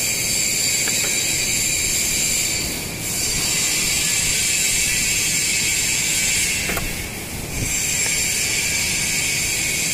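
Shielded metal arc (stick) welding: the arc crackles and hisses steadily while a bead is run to fill a wide gap in a flat-position joint, dipping briefly twice.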